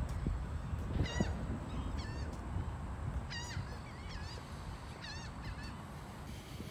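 Birds calling: several short, wavering cries, roughly one every second, over a steady low rumble.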